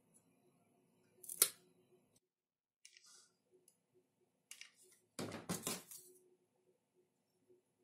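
Side cutters snipping through a wooden popsicle stick with one sharp crack about a second and a half in. Light ticks of wooden craft sticks being handled follow, then a louder brief burst of clattering handling noise about five seconds in.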